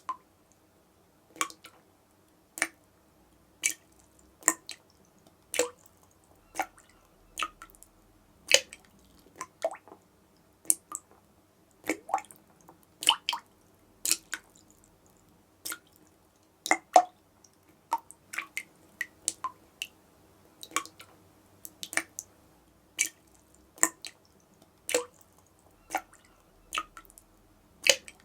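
Water dripping from a tap: single drops falling one after another, about one a second at an uneven pace, each a short sharp plip.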